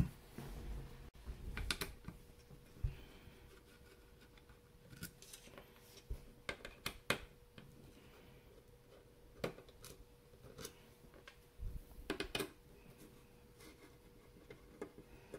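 Small precision screwdriver turning out the screws of a graphics card's metal backplate: scattered faint clicks and scratches of the tip seating and the screws turning, with the odd knock of the card being handled, over a faint steady hum.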